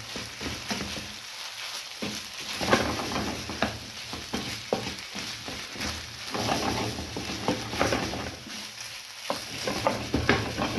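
Egg fried rice with chicken sizzling in a hot pan as it is stir-fried, with a spatula scraping and knocking against the pan again and again.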